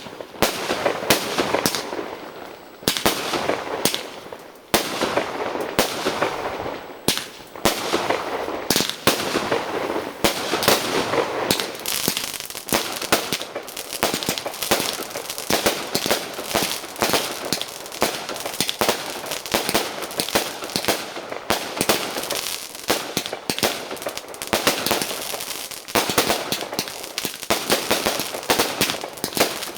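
Aerial fireworks display: a rapid, continuous string of shell bursts and crackling reports, many bangs a second with hardly a pause, with a brief lull about two to five seconds in.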